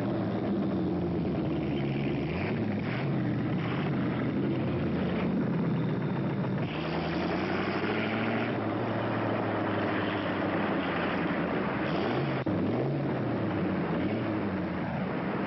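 A car engine running, its pitch rising and falling again and again as it is revved and eased off.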